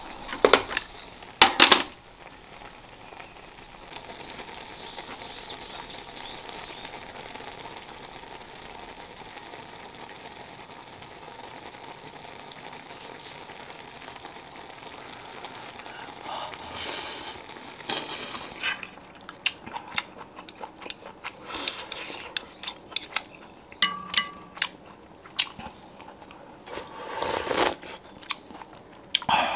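Ramen broth simmering in a cast-iron griddle lid, a steady bubbling hiss, with a couple of loud knocks near the start and scattered sharp clicks and clatters through the second half.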